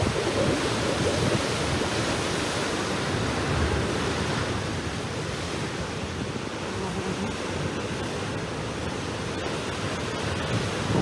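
Ocean surf surging and breaking in a narrow chasm between layered limestone stacks: a continuous rushing wash of churning water that eases a little midway and swells again near the end.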